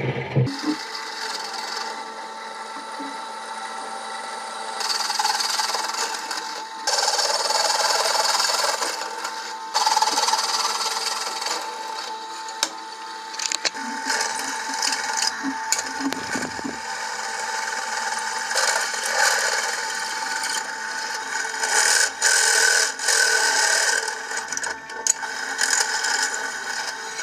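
Bench drill press running, its twist bit and then a larger cutter boring into steel plate: a steady motor hum under a harsh cutting noise that gets louder and quieter in stretches.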